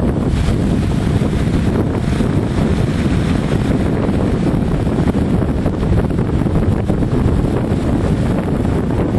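Wind buffeting the microphone: a steady, loud low rumble with no let-up.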